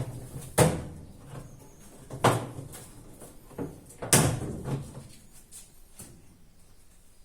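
Knocks and clunks of a washing machine's plastic cover being handled and taken off: three loud knocks a second and a half to two seconds apart, a lighter one near the end, and small clicks in between.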